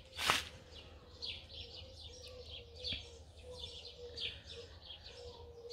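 Birds chirping repeatedly in short high notes, with a faint steady hum underneath. A brief rush of noise sounds right at the start.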